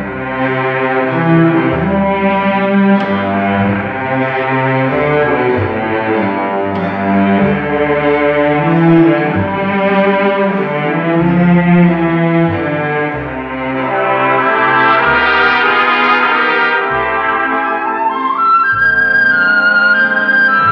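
Instrumental break in an orchestral French song: brass carries the melody over strings and a bass line, with a higher melodic line entering near the end.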